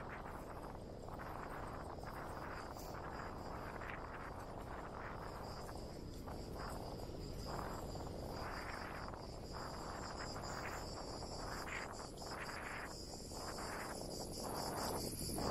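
A steady, high-pitched insect chorus over a low rushing noise that swells and fades, which is wind buffeting the microphone on the moving bike.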